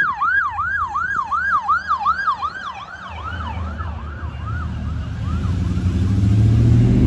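Police car siren in a fast yelp, about four rising-and-falling sweeps a second, fading away over the first few seconds. Then a vehicle engine grows louder near the end as traffic approaches.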